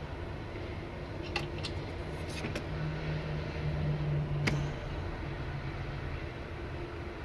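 Steady low rumble with a low hum that swells for about two seconds in the middle and then stops. A few light, sharp clicks sound over it in the first half, with one more just after the hum peaks.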